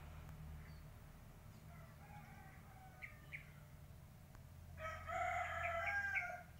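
A rooster crowing once, about five seconds in, a single call lasting about a second and a half; fainter bird chirps come before it.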